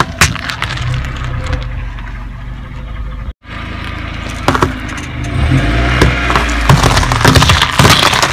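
A car tyre rolling slowly over raw vegetables with the engine running low underneath. A sharp crack just after the start as a white radish snaps, then, after a short break in the sound, whole raw potatoes crunching and cracking under the tyre, scattered at first and then in a dense run near the end.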